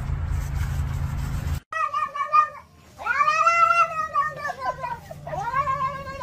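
A cat meowing three times: a short meow, then two long, drawn-out meows that rise and then fall in pitch. A low steady rumble comes before the meows and cuts off abruptly.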